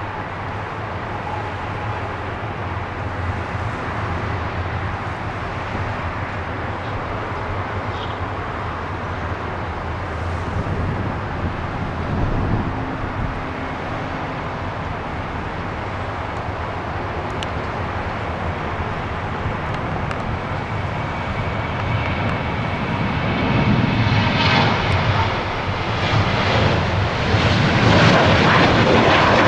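Boeing 737-800's CFM56-7B turbofan engines running at takeoff thrust: a steady jet rumble that grows louder over the last several seconds, with a whine coming in near the end.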